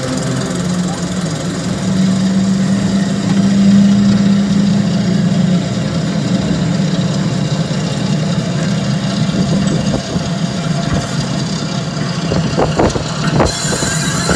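Steady low mechanical drone of a rotating turntable ride running as its cars spin, with people's voices coming in near the end.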